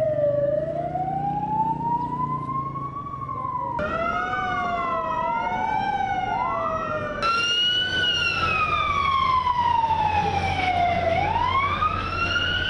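Emergency vehicle sirens wailing, their pitch sliding slowly up and down over a few seconds at a time. The sound changes abruptly about four and seven seconds in, and in between two sirens overlap at different pitches. Steady low street noise runs beneath.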